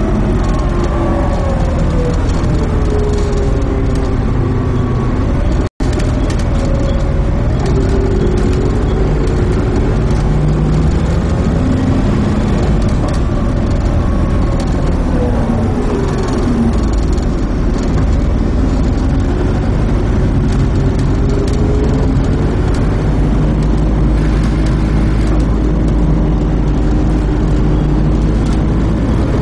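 Volvo B7TL double-decker bus's six-cylinder diesel engine working hard through its ZF Ecomat automatic gearbox, its pitch rising and falling repeatedly as it accelerates and changes gear.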